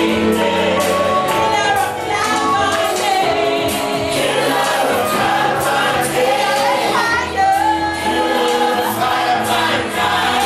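Gospel worship song: a woman singing with choir voices over sustained band accompaniment.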